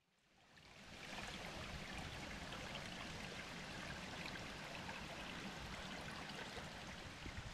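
A small rocky burn running below the hammock: steady babbling stream water that fades in during the first second and then holds even.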